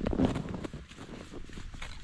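Footsteps crunching in snow on a frozen pond, a series of uneven crunches with a heavier scuff or knock right at the start.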